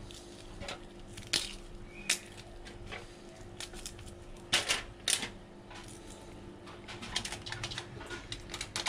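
Aluminium foil crinkling and rustling, with irregular small taps and clicks as pieces of sliced onion, leek and pepper are dropped and pressed onto fish fillets lying on the foil; a few louder crinkles come about halfway through.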